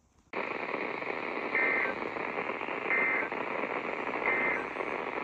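Weather radio static hiss with three short bursts of EAS SAME digital data tones, about a second and a half apart, coming through poor reception. The bursts are short, like an end-of-message code.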